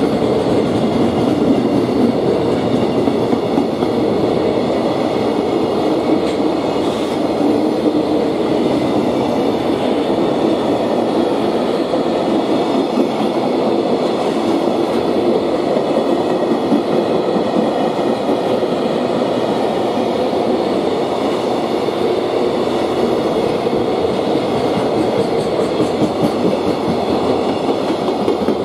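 Container freight train of flat wagons running past at speed: a steady, loud rumble and rattle of wagon wheels clattering over the rail joints.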